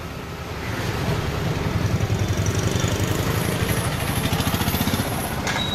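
A motor vehicle's engine running steadily at idle, growing louder about half a second in.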